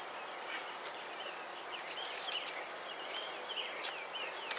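Steady outdoor background noise with small birds chirping faintly and repeatedly throughout, and a few faint ticks.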